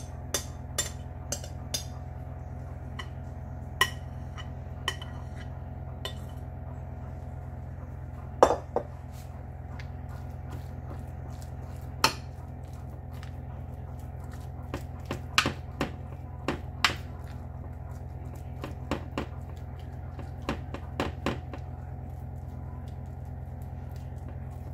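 A spatula scraping and knocking against a glass mixing bowl and a glass baking dish, with scattered sharp clinks and taps; the loudest come about eight and twelve seconds in. A steady low hum runs underneath.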